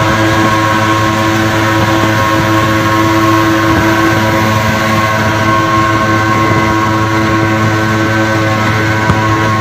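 Two-stroke Suzuki pickup engines running hard at highway speed, a steady unchanging drone over road and wind noise.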